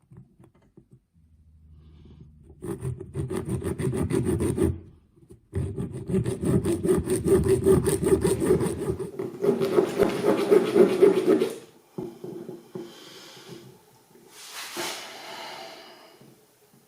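Rapid rasping and scraping of a hand tool working hard against a tight fastener on an outboard carburetor, in two long spells with a short break about five seconds in, then fainter scraping.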